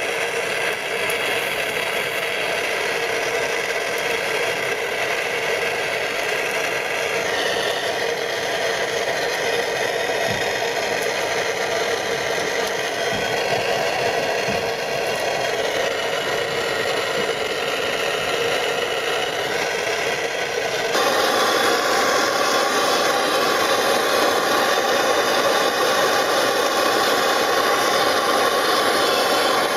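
Blowtorch flame running steadily, heating copper pipe fittings for soldering. The sound shifts about seven seconds in, gets louder about two-thirds of the way through, and cuts off suddenly at the very end.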